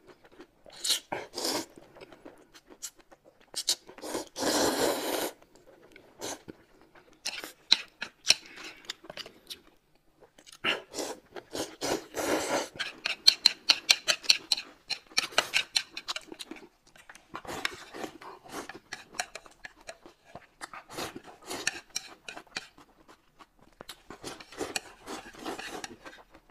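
Food and tableware being handled at a table: a run of short clicks and scrapes, with a couple of longer rustling stretches about four and twelve seconds in.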